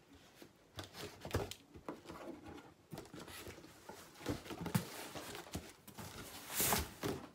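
Cardboard shipping box being handled and opened by hand: the flaps scrape and rustle, with scattered knocks, and the loudest rasp comes near the end.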